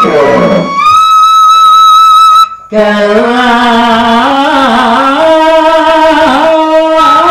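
Bamboo flute (suling) holding one long high note, then a man's voice comes in about three seconds in, singing a slow, bending Madurese tembang macapat line with the flute playing along.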